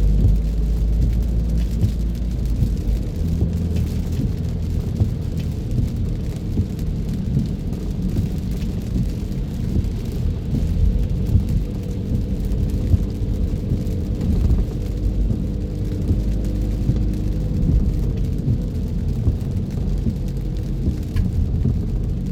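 A car driving in the rain: a steady low rumble of engine and tyres on the wet road, with a faint hiss of rain above it.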